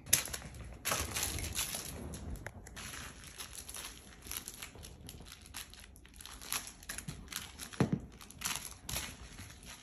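Irregular rustling, crinkling and scuffing as a Staffordshire Bull Terrier puppy plays with a toy in a fabric dog bed, with a sharp knock right at the start.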